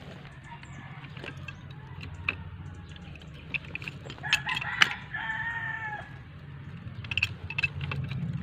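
A rooster crowing once, about four seconds in, ending on a falling note. Around it come scattered sharp clicks and knocks from a hand tool being worked on plastic pipe fittings.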